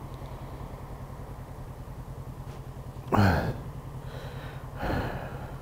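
Motorcycle engine idling steadily at a standstill, a low pulsing rumble. About three seconds in, and again near five seconds, the rider breathes out heavily into the helmet microphone, struggling to breathe in the cold.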